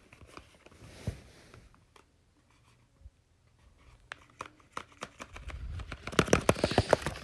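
Paper dragon puppet being handled: crinkling and rustling paper with scattered sharp clicks and taps. The clicks come faster and louder in the last couple of seconds.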